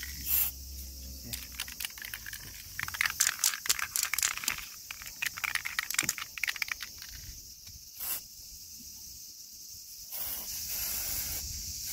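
Aerosol can of clear-coat paint hissing steadily as it sprays, starting about ten seconds in. Before that, irregular clicks and rattles from handling the can and its plastic cap.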